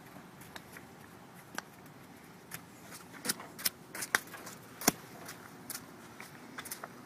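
Irregular sharp taps and clicks, a cluster of louder ones in the middle, over a faint steady hiss.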